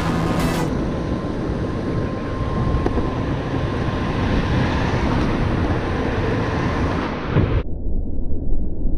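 DIY electric skateboard rolling along pavement: steady wheel and road noise with wind on the microphone. Near the end the hiss drops away, leaving an uneven low rumble.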